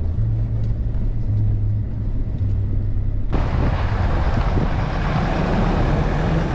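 Toyota Hilux pickup driving: a steady low engine hum heard inside the cab, then about three seconds in it switches abruptly to a loud rush of wind and tyre noise heard from outside the moving truck.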